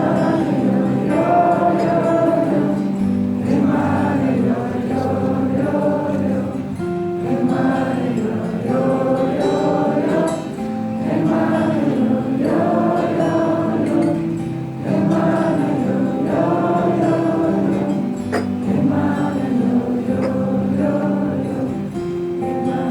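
Live music: many voices singing a wordless, repeating melody over a steady low held note.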